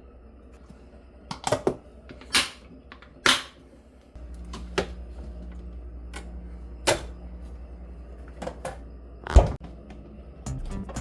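About a dozen scattered knocks and clicks of hard objects, irregularly spaced, the loudest near the end, with a low steady hum starting about four seconds in.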